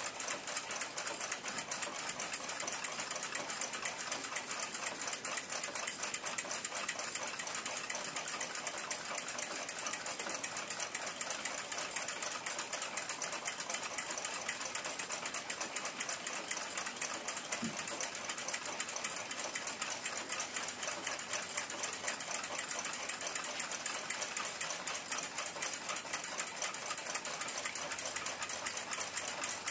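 Fast, steady mechanical clicking with no pauses.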